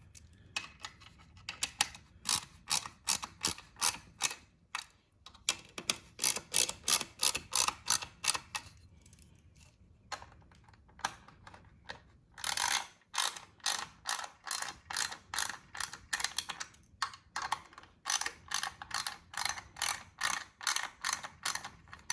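Rhythmic clicking of a tool turning the 5 mm hex bolts of a Ninebot Max seat mount as they are tightened. The clicks come at about two to three a second, in several runs separated by short pauses.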